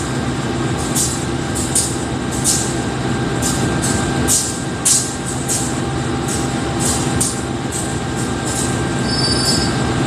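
CC 203 diesel-electric locomotive idling with a steady engine hum, and irregular short hisses over it.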